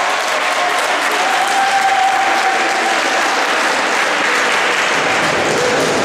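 Spectators clapping: steady applause.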